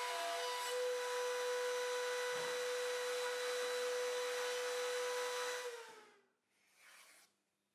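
Compact trim router with a straight bit running at speed with a steady high whine. About six seconds in it is switched off and the pitch falls as it spins down. A brief soft scrape follows.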